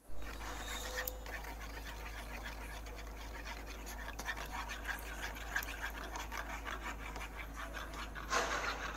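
A spoon stirring and scraping oyster sauce in a small bowl: a fast, uneven run of soft scrapes and taps, with a louder brief rustle near the end. A steady low hum runs underneath.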